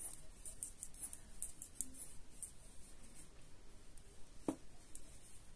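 Knitting needles clicking faintly and irregularly as stitches are worked, with one sharper click about four and a half seconds in.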